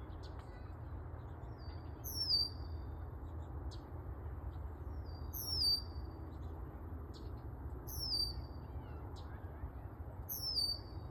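A bird calling: a high, downward-slurred whistle repeated four times, about every three seconds, each with a short note just before it, with faint short chips in between. Underneath is a steady low rumble.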